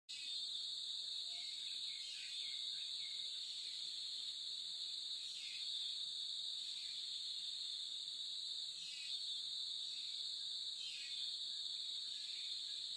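Steady, high-pitched chorus of insects buzzing without a break, with faint short falling calls every second or two.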